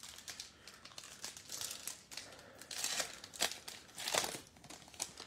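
Foil wrapper of a trading-card pack crinkling and tearing as it is pulled open by hand, with the loudest rips about three and four seconds in.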